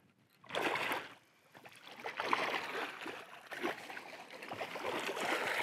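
Water splashing and sloshing from a hooked bass being fought to the boat. It comes in uneven bursts: a short one about half a second in, then a longer stretch from about two seconds on.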